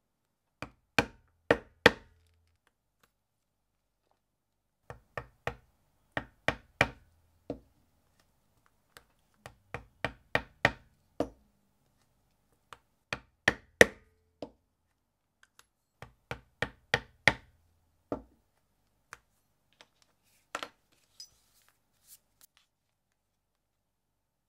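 A maul striking a leather stitching chisel, punching stitching holes through bridle leather: sharp knocks in bursts of four to seven quick strikes separated by short pauses, the chisel moved along the edge between bursts. A few lighter single taps near the end.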